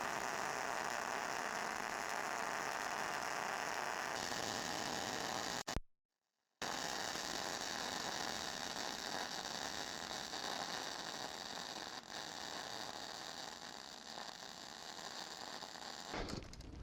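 Hobart Handler 140 MIG welder laying weld beads on a steel table frame, a steady hiss with no tone, in two long stretches broken by a brief gap about six seconds in.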